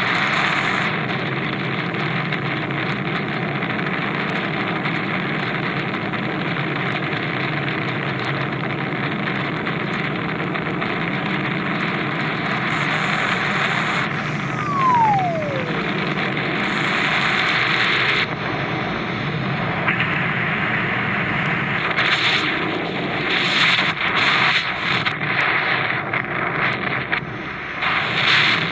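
Wind rushing past a small light airplane gliding with its engine stopped and its propeller still. About halfway through comes a short falling whistle. In the last third the wind turns gusty and uneven, buffeting the microphone as the pilot climbs out of the cabin into the airstream.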